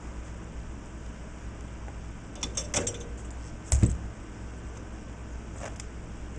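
Parts being handled during electronics assembly: a few sharp clicks and rattles about two and a half seconds in, then one louder thump just under four seconds in, over a steady low hum.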